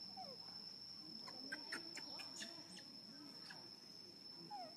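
Faint outdoor ambience: a steady high-pitched insect drone, with a cluster of short chirps in the middle and a brief falling call near the start and again near the end.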